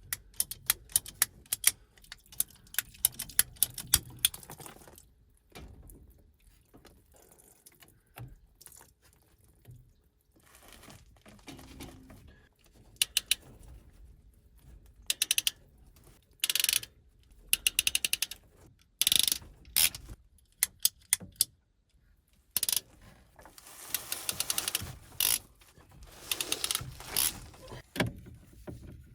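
Hand tools and plumbing parts being worked: many sharp clicks and ratchet-like rattles, dense in the first few seconds, then scattered groups of clicks and longer noisy bursts around the middle and near the end.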